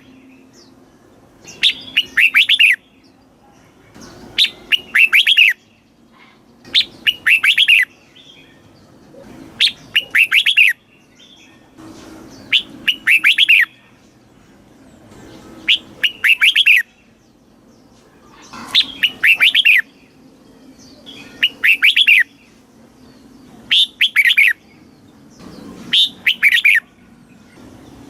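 Red-whiskered bulbul singing: short phrases of quick, bright whistled notes, repeated about every two and a half seconds.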